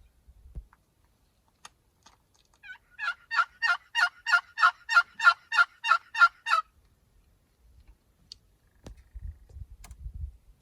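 A turkey yelping: a run of about a dozen evenly spaced, loud notes, nearly four a second, lasting three to four seconds and starting a few seconds in.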